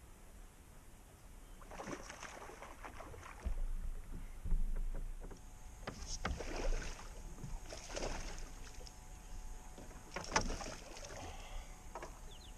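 A hooked fish splashing at the surface while being played from the bow of a fishing boat, in several irregular bursts of splashing, with a few dull thumps on the boat's deck about four seconds in.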